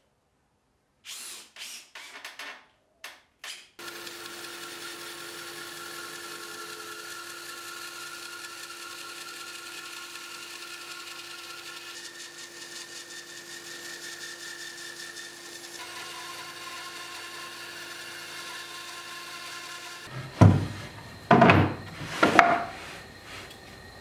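Bandsaw running steadily while resawing a live-edge Australian blackwood slab, a steady machine sound with a few level tones. A few short noises come before it, and three loud knocks near the end.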